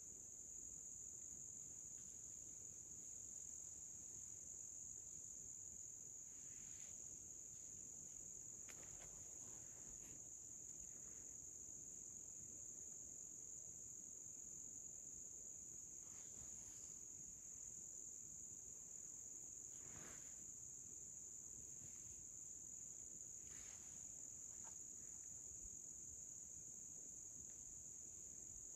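Faint, steady, high-pitched insect chorus, with a few faint scattered ticks.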